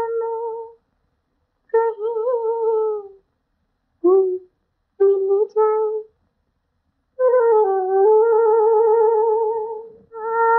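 A woman's voice humming a slow, wordless melody with no accompaniment, in several phrases broken by short silences. The notes are long and have vibrato, with a short rising phrase about four seconds in. This is the opening vocalise of a 1950s Hindi film song.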